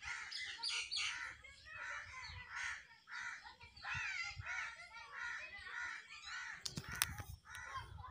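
Crows cawing over and over, several calls overlapping, with a few sharp clicks shortly before the end.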